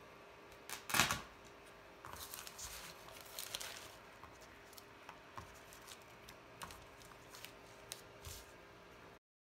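Clear plastic zip-top bag rustling and crinkling as gum paste petals are taken out of it, with a louder rustle about a second in. Light taps and clicks follow as the petals are set down, and the sound cuts off just before the end.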